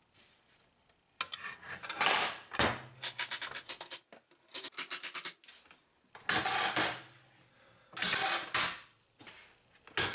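Steel airgun target boxes being slid and set down on a tabletop: several bursts of metal scraping and clattering, with quick runs of rattling clicks a few seconds in.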